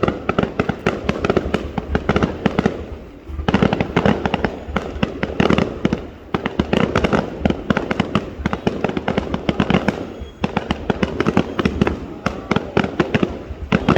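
Aerial fireworks going off in a dense, rapid barrage of bangs and crackles, with brief lulls about three, six and ten seconds in.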